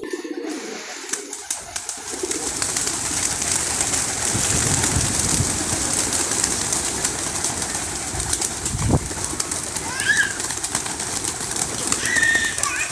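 Domestic pigeons cooing in their loft against a steady hiss, with a single thump about nine seconds in and a few short, higher chirps near the end.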